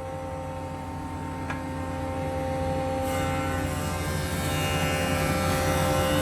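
CNC machine running while surfacing a granadillo wood slab: a steady whine of several fixed tones over a low hum. Its noise grows steadily louder, and a rushing sound joins about halfway through.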